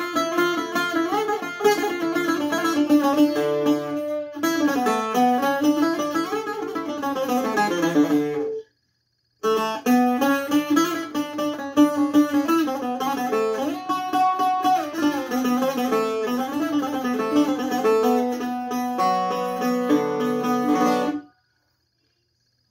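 Greek bouzouki played solo in a taximi, a free improvisation of quick plucked melodic runs. There is a short break about nine seconds in, and the playing stops about a second and a half before the end.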